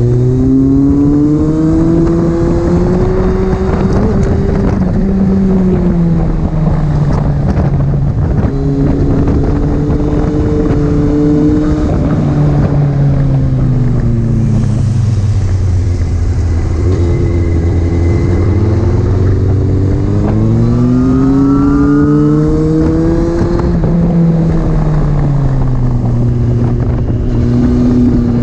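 Honda CBR929RR's 929 cc inline-four engine under load at track speed, its note climbing and falling again and again as the rider opens and closes the throttle through the corners, with a rush of wind underneath.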